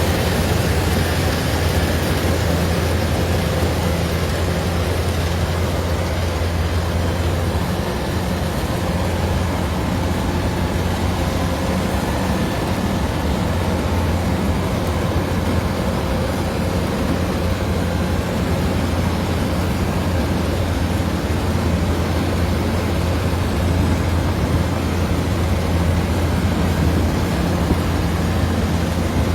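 Kubota DC-105 combine rice harvester's diesel engine and threshing machinery running steadily at working speed, a constant low hum under a broad mechanical noise.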